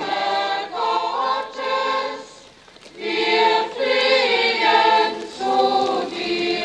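A crowd of procession pilgrims singing a hymn together, in sustained sung phrases with a short breath pause about two and a half seconds in.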